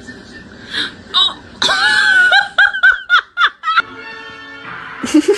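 A quick run of short, high-pitched squealing calls, each bending in pitch, which stops abruptly. Steady music with held tones takes over.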